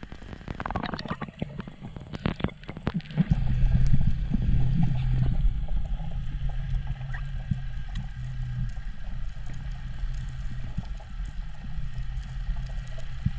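Underwater sound from a diver near the surface: splashing and crackling bubbles for the first few seconds, then, about three seconds in, a louder steady low rumble with a hum as the diver heads down.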